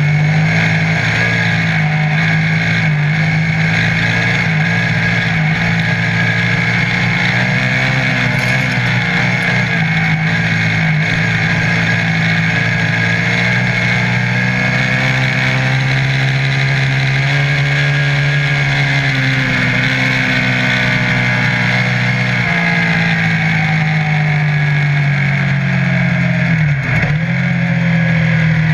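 Offroad buggy's engine running hard as it drives along a dirt road, heard from the cockpit, its pitch rising and falling a little as the throttle changes.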